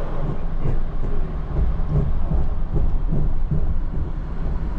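Inside an Amtrak Viewliner II sleeping car rolling along the track: a deep steady rumble with irregular knocks from the wheels running over the rails.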